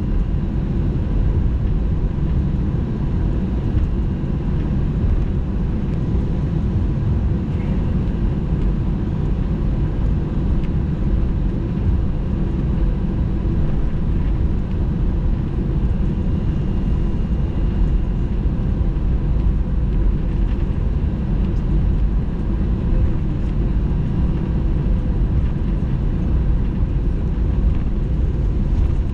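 Steady low rumble of the engines and airframe heard inside the cabin of an Airbus A320-214 with CFM56-5B engines, with a few faint steady tones over it. The level holds even, with no spool-up, as the aircraft moves on the ground shortly before takeoff.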